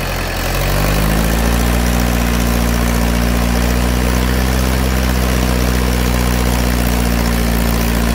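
Mahindra 575 DI tractor's four-cylinder diesel engine picking up revs over the first second and a half, then running steadily under load while powering a seven-foot Shaktiman rotavator.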